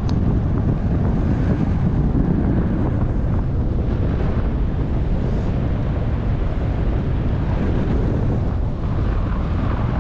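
Steady wind buffeting the microphone: a loud, even low rumble.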